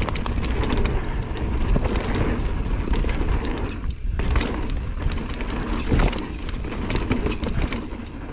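Mountain bike running down a rough dirt trail: a steady low rumble of tyres over the ground with constant rattling clicks and knocks from the bike. It eases briefly about four seconds in, and a heavy knock comes about six seconds in.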